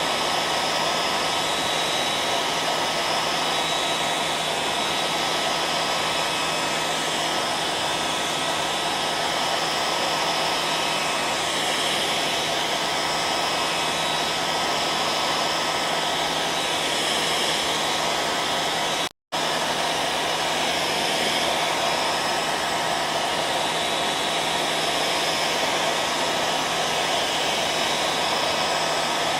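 Hair dryer running steadily: a continuous rushing noise with a faint steady hum under it. It cuts out for a split second about two-thirds of the way through, then carries on unchanged.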